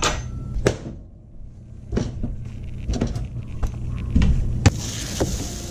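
Kitchen handling sounds at the stove: a series of light knocks and clicks as a bowl and a can of cooking spray are picked up and set down beside a griddle, over a low steady hum. Near the end a steady hiss sets in.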